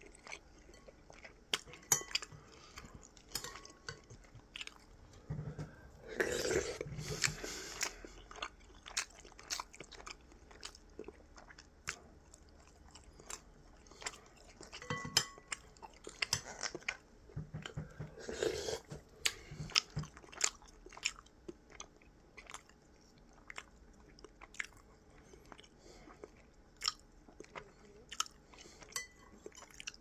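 Ducorps's cockatoo eating: irregular sharp beak clicks and crunches as it bites and chews. There are two longer, louder noisy stretches, about six seconds in and again around eighteen seconds.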